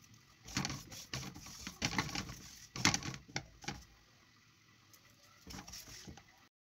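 Sesame seeds being stirred in a dry metal frying pan with a silicone spatula as they toast: irregular rustling, scraping strokes, quieter for a while after about four seconds, a few more strokes, then the sound cuts off suddenly near the end.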